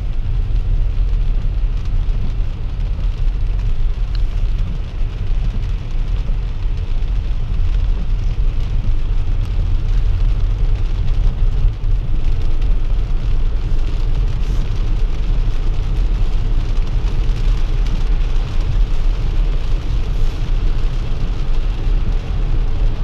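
Road noise inside a Tesla's cabin on a wet highway: a steady low rumble with the hiss of tyres on wet pavement and rain on the car.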